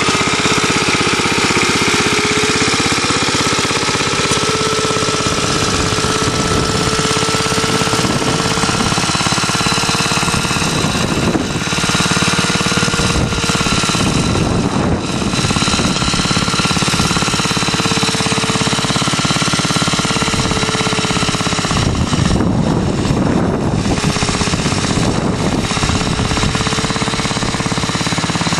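1947 Clifford Mk1 two-wheeled tractor's J.A.P. engine running steadily under load while it pulls a plough through the soil, a loud, rapid and even firing beat.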